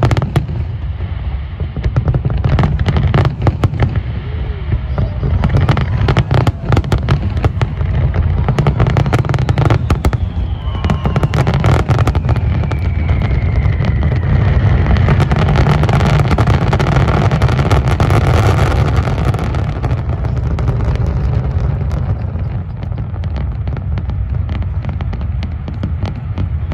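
Aerial fireworks display: a rapid barrage of shell bangs and crackling bursts over a constant low booming, thinning out near the end.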